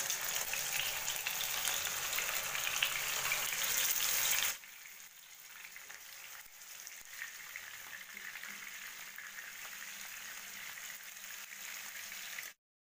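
Pieces of rohu fish sizzling as they shallow-fry in hot vegetable oil in a non-stick pan. The sizzle is loud for the first four and a half seconds, drops suddenly to a quieter steady sizzle, and cuts off to silence just before the end.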